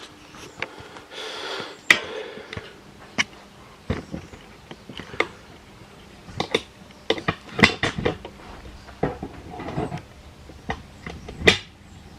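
Irregular clinks and knocks of metal parts and tools being handled on a workbench: about a dozen sharp, separate strikes at uneven intervals, with a short hiss about a second in.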